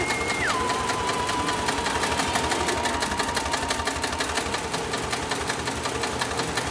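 9366HM heavy-duty long-arm zigzag sail-maker sewing machine stitching steadily, its needle making a rapid, even clatter as it feeds through the fabric.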